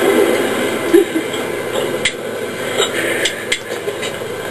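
Muffled background crowd chatter with about five short, sharp clicks scattered through it.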